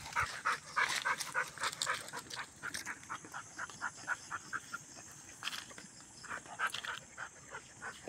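A dog panting fast and rhythmically, a steady run of short breaths at about five a second.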